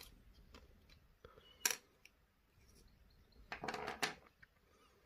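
Small metal clicks and clinks from handling the parts of a disassembled lock cylinder: one sharp click a little under two seconds in and a short run of clinks around four seconds in.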